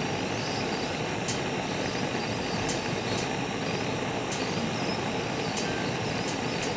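Hot-air balloon's propane burner firing: a steady, unbroken rushing noise.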